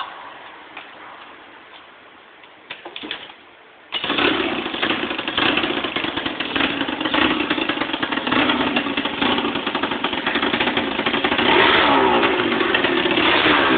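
Runner scooter's rebuilt Piaggio Hexagon 150 liquid-cooled two-stroke engine, with a free-flowing exhaust, being started for the first time after the rebuild. A few faint clicks come first, then about four seconds in it catches suddenly and keeps running loudly, rising and falling in pitch as it is revved near the end.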